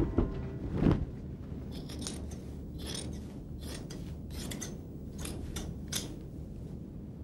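Two dull knocks in the first second, then a series of about eight short, sharp scraping strokes of a metal blade, unevenly spaced, over a steady low hum.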